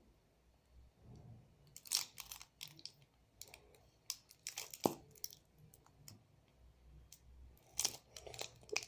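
Irregular sharp clicks and light crackling of plastic containers and utensils being handled while mixing slime, the loudest click about five seconds in.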